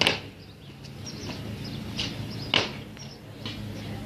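Sharp stamps of a marching color guard's boots striking the pavement in unison. The loudest is near the start, with a weaker one about two seconds in and another loud one about two and a half seconds in, over a steady low hum.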